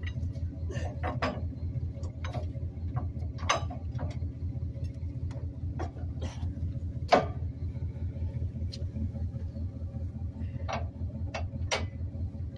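Steel spring bars and brackets of a trailer's weight-distribution hitch clinking and clanking as they are fitted, with one louder clank about seven seconds in. A vehicle engine idles steadily underneath.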